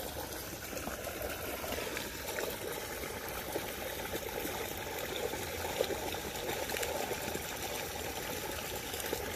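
Water pouring steadily from the open mouth of a drainage pipe into the lake, a constant splashing trickle.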